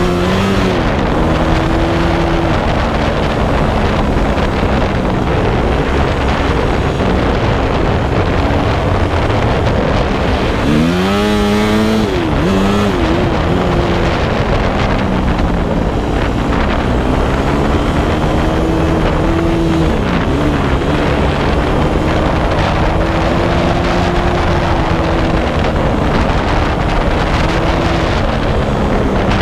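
Yamaha dirt bike's four-stroke single-cylinder engine under way on a dirt trail, its pitch rising and falling with throttle and gear changes, with a quick sharp rev about eleven seconds in. Wind rushes over the microphone.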